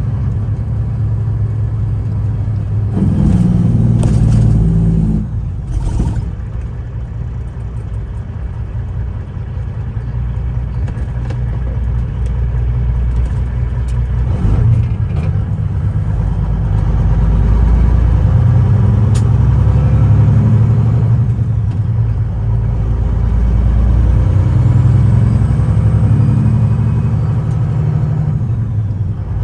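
Semi truck's diesel engine running under load as the truck pulls out and gets under way, a steady low rumble whose pitch rises and falls several times.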